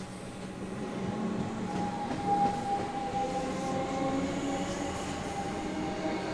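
Comeng electric suburban train rolling along the platform, running with a steady whine over wheel-on-rail noise, with one brief louder knock about two and a half seconds in.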